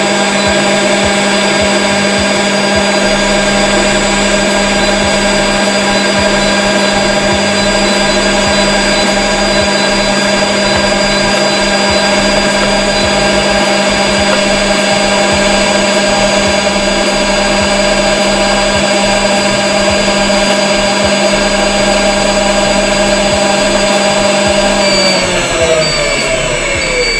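Homomixer motor of a vacuum emulsifying kettle running at a steady high-speed whine, then switched off near the end, its pitch falling as it spins down.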